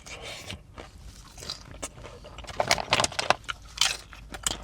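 Crunching and chewing of crispy food: a string of irregular crunchy bites, loudest and densest from about two and a half to four seconds in.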